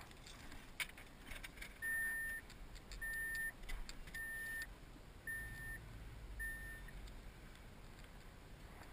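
A car's electronic warning chime beeping five times, evenly spaced about a second apart, with scattered clicks and light rattles around the first beeps.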